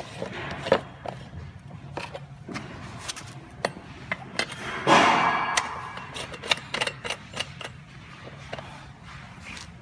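Handling noise from a metal air-filter canister and threaded steel pipe nipples being fitted together by hand: scattered clicks, knocks and small clinks, with one louder, longer rustling swish about five seconds in.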